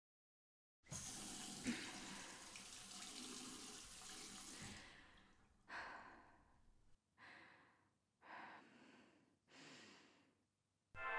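A tap running into a sink for about four seconds, with a small click near the start, then stopping; then four separate heavy breaths or sighs, each short and fading out.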